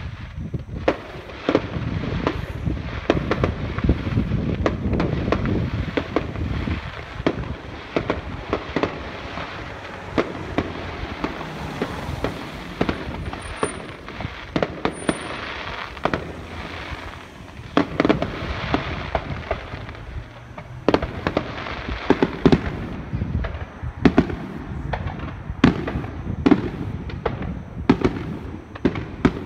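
Aerial fireworks display: a long, irregular run of shell bursts, many sharp bangs and crackles over a continuous low rumble, coming thicker and louder in the last third.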